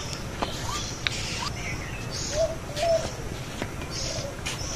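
Birds calling: short rising notes repeated every half second or so, two louder, lower notes about halfway through, and higher chirps. A few light clicks are mixed in.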